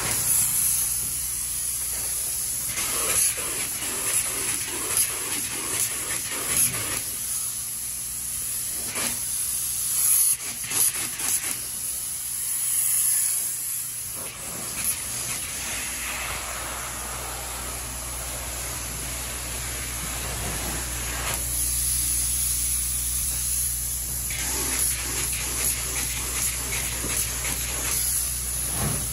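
Spray foam gun hissing steadily as two-pound closed-cell spray foam is sprayed into the floor bays. The hiss swells and eases as the passes go, with a few brief sharp knocks over a low steady hum.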